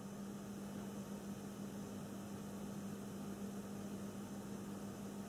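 Faint room tone: a steady low hum over an even hiss.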